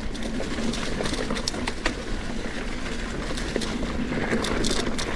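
Trek Fuel EX 9.7 mountain bike being ridden along a dirt trail: steady tyre noise on dirt, with frequent small clicks and rattles from the bike over rough ground.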